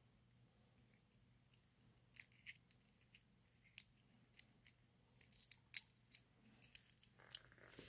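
Faint, scattered small metallic clicks and ticks from the pilot burner assembly of a Bosch AquaStar 125B gas water heater being handled and screwed back together with its pilot tube. The clicks come more often in the second half.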